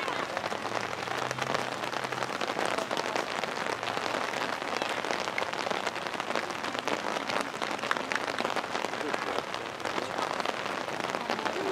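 Steady patter of rain: a dense, even hiss made of many small drop clicks.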